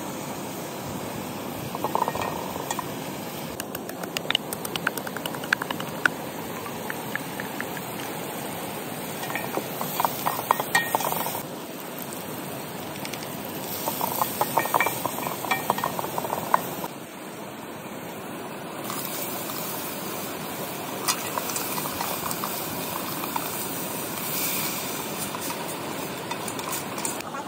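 Chopped onion, tomato and green chillies sizzling in an aluminium pot over a wood fire. A metal knife, and later a wooden spoon, scrapes and clinks against the pot in short bursts of stirring. A small stream runs steadily underneath.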